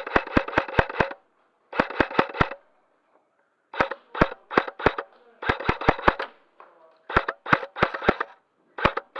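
Airsoft gun firing in repeated short bursts, a sharp clack for each shot at about five shots a second, with brief pauses between bursts.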